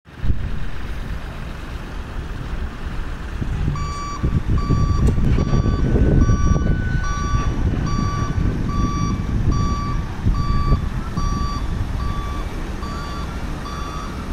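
Heavy diesel engine rumbling throughout. About four seconds in, a vehicle's reversing alarm begins, beeping steadily about twice a second.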